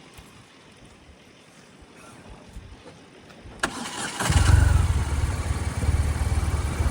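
2005 BMW R1200RT's boxer twin engine started with a click and brief cranking about three and a half seconds in, catching quickly and then idling steadily with a deep, even pulse.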